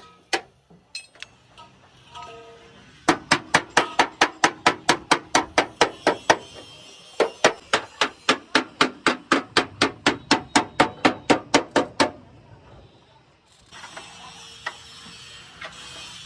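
A hammer striking metal in a quick, even rhythm, about four blows a second, with a brief pause partway through; a few scattered lighter knocks come before it.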